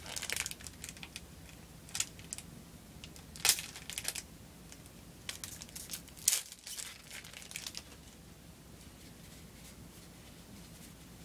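Foil wrapper of a Dragon Ball Z trading-card pack crinkling and tearing as it is opened by hand, in a series of short crackles over the first eight seconds or so.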